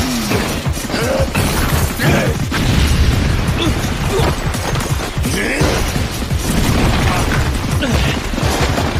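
Anime battle sound effects: a rapid string of crashes, booms and tumbling concrete debris over a constant low rumble, mixed with a dramatic music score.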